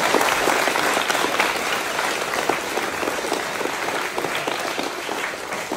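A group of people applauding: many hands clapping at once, loudest at first and slowly fading.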